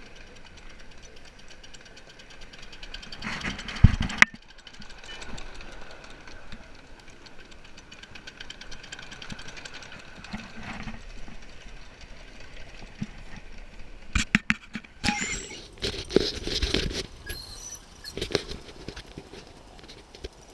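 5-inch gauge coal-fired Martin Evans 'Simplex' steam locomotive and its train running along the track: a steady rattle with fast regular ticking, a louder knock about four seconds in, and a run of loud knocks and bursts near the end.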